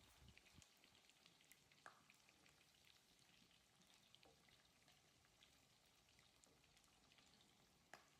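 Near silence, with faint scattered pops and crackles of onions and tomatoes frying in oil in the pot; one clearer pop about two seconds in and another near the end.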